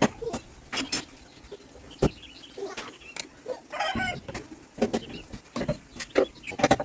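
Scattered sharp knocks and clicks, with a few short animal calls in between, the clearest about four seconds in.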